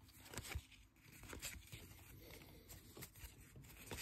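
Faint rustling and crinkling of a foil trading-card pack wrapper and cards being handled, with a few soft clicks scattered through.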